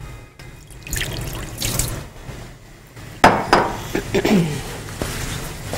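Crockery clinking and knocking as a serving dish is taken out at a kitchen sink, with water dripping and splashing. The loudest knock comes a little past halfway.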